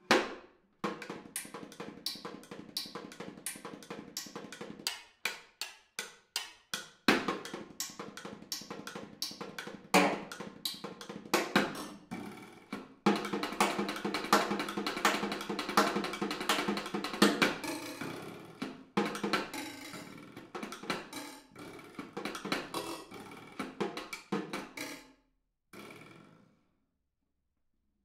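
Snare drum played with sticks in a fast, intricate solo, dense sharp strokes with a fuller, louder stretch in the middle. The playing thins out and stops a couple of seconds before the end.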